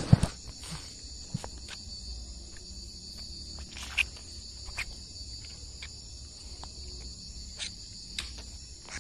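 Night insect chorus, crickets chirring steadily and high-pitched, with scattered short knocks and rustles close to the microphone, the loudest just after the start and another about four seconds in.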